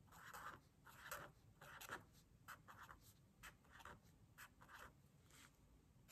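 Marker pen drawing on paper: faint scratching in a quick, irregular series of short strokes as the tip moves over the sheet.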